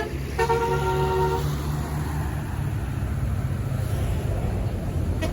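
Tourist bus's basuri-type telolet horn sounding a held multi-note chord for about a second near the start, then the bus's diesel engine running low and steady.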